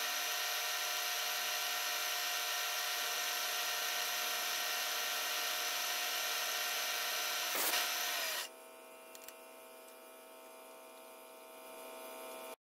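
Milling machine spindle running steadily while a small end mill cuts a star profile into the end of a metal rod, a whine made of several steady tones over a hiss. Past the middle there is a short sharp scrape, then the cutting hiss drops away suddenly, leaving a quieter steady machine hum.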